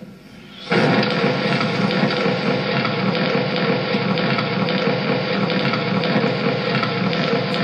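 Fire sound effect played through the safety display's speakers: a loud, steady rushing noise that starts abruptly about a second in, marking the house catching fire after the digger strikes an unmarked gas line.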